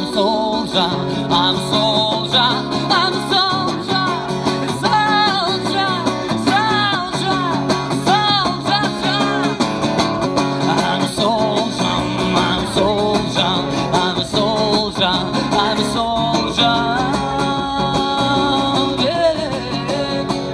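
A male singer singing to a strummed acoustic guitar, live.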